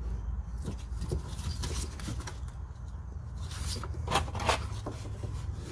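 Faint clicks and rubbing from fingers working a plastic quick-connect clip on a steel fuel line, over a low steady hum.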